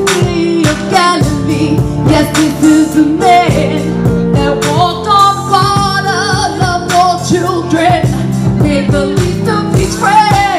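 A woman singing a song over full band accompaniment with a steady drum beat.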